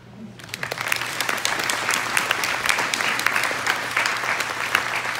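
Audience applause: many people clapping, starting about half a second in and holding steady.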